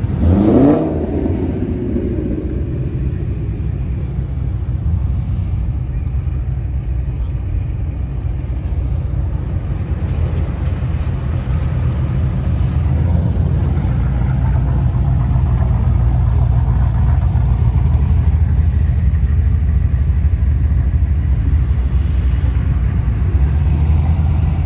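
A car engine revs once sharply near the start, its pitch climbing quickly, then settles into a steady low engine rumble.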